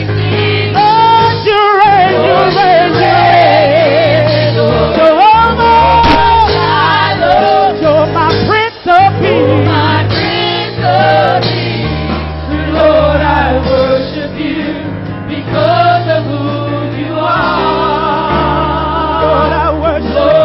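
A gospel praise team singing live with a band. Sung lines bend and run over sustained bass notes that change every couple of seconds.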